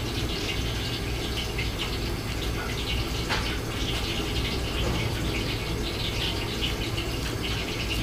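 Steady hissing kitchen background over a low hum, with faint scraping from a deba knife cutting a fish's flesh away from the bones on a wooden chopping block.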